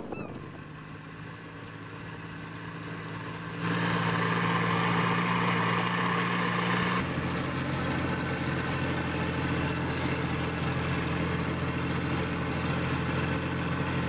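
Boat engine running steadily with a low hum. It gets louder and brighter from about four seconds in, drops back slightly at about seven seconds, and cuts off abruptly at the end.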